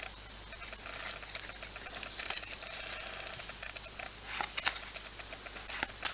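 Trading cards and their pack wrapper being handled: a busy run of rustling and small clicks as cards are flicked through, with a few sharper snaps about four and a half seconds in and near the end.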